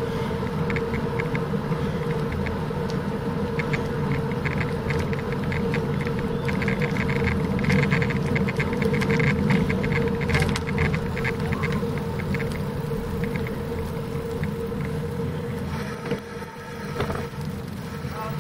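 Wind rushing over the microphone and tyres rolling on asphalt from a moving bicycle, with a steady hum and light clicking throughout. It quietens briefly near the end as the bike slows.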